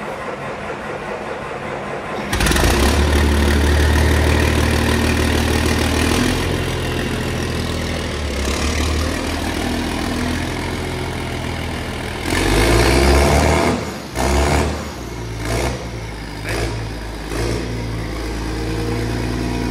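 Claas Xerion tractor engine running with its exhaust removed, open and loud. It starts up about two seconds in, is revved up once past the middle, then blipped several times near the end.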